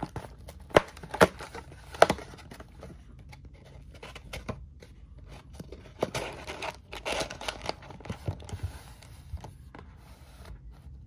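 Cardboard booster box lid being folded back and tucked in to form a display: three sharp cardboard snaps in the first two seconds, then rustling and scraping of cardboard over a couple of seconds near the middle.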